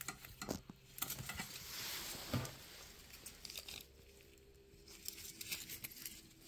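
Quiet rustling of jacket fabric and gloved hands close to the phone, with scattered light clicks and taps; the rustling is strongest about a second or two in.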